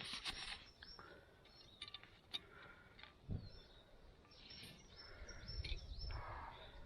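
Faint outdoor ambience with a few scattered light clicks and rustles.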